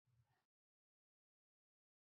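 Near silence, with only a very faint, brief sound in the first half second.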